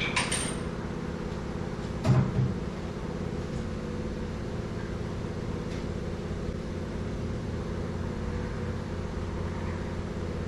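Clanks of metal parts on a tire changer machine as it is being assembled: a short knock at the start and a louder clunk about two seconds in, over a steady low mechanical hum.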